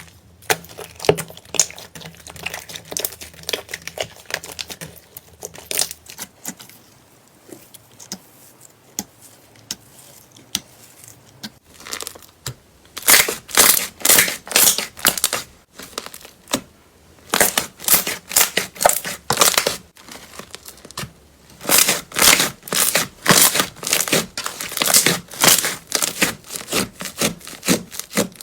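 Crunchy slime being squeezed and pressed by hand, giving rapid crackling and popping clicks. They come in loud rhythmic runs from about halfway through.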